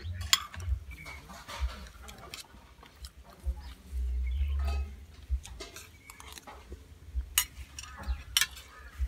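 Metal spoon and fork clinking and scraping against a ceramic plate while scooping rice, with several sharp clinks. A low rumble lasts about a second some four seconds in.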